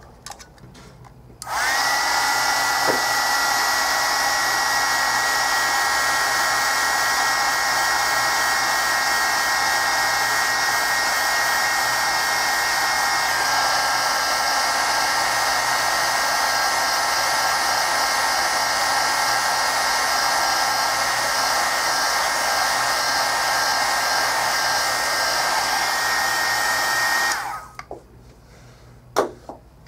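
Small heat gun switched on about a second and a half in, running with a steady blowing noise and a fan whine, then switched off near the end. It is warming the adhesive under the phone's screen so the screen pries up more easily.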